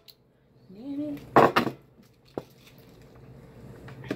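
Cooked shellfish being cracked and picked apart by hand at the table, with a brief clatter of shell about a second and a half in and a sharp click a second later. A short hum from a voice comes just before the clatter.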